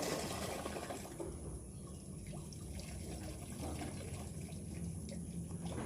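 Water trickling and dripping in a drain, a steady running-water sound with a few faint ticks.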